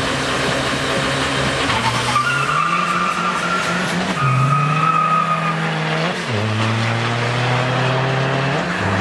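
Drag cars launching off the start line. An engine held at steady revs pulls away with tyres squealing, then climbs in pitch through the gears, dropping back at three upshifts about two seconds apart.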